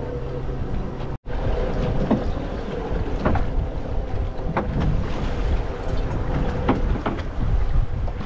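Wind buffeting the microphone and sea water washing against a small fishing boat's hull, under a faint steady hum, with a few short knocks or splashes. The sound drops out for an instant about a second in.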